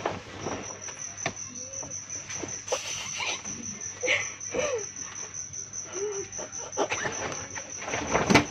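Crickets chirping in a steady, rapid pulsed trill, with scattered clicks, rustles and short squeaks over it and a louder knock near the end.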